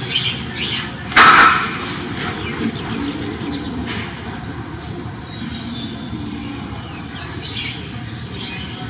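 Steady outdoor background with scattered short bird chirps, and one brief louder sound about a second in.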